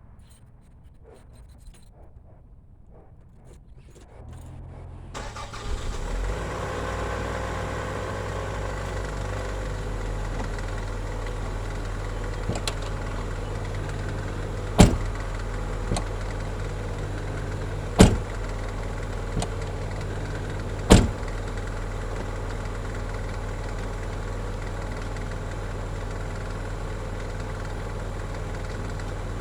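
A car engine starts about four seconds in and settles into a steady idle. Over it, a car door is shut hard three times, a few seconds apart, with lighter latch clicks in between: the door and its latch being tested after repair work.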